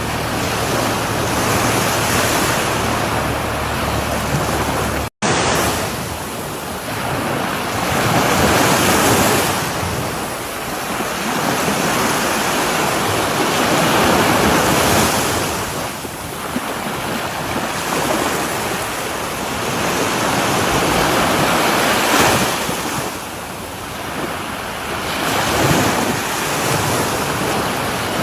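Sea waves breaking and washing up a shore, the surge swelling and fading every few seconds. The sound cuts out for an instant about five seconds in.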